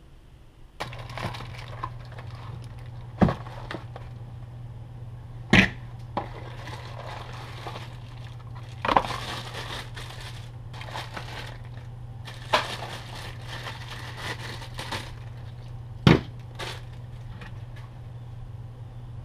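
Clear plastic packaging crinkling as new metal winch solenoids are unwrapped, with five sharp knocks as they are set down on a workbench, over a steady low hum.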